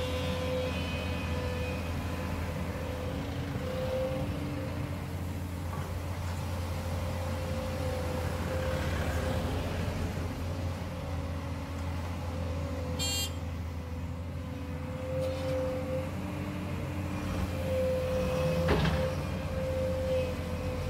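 Volvo EC210D excavator's engine running steadily under working load, with a steady whine over the low drone, as the bucket digs gravel and swings to dump it into a truck. A sharp knock comes near the end.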